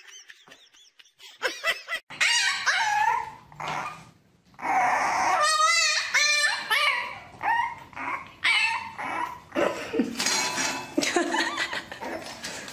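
Puppy yipping and whining in a string of short, high cries with wavering pitch, starting about two seconds in.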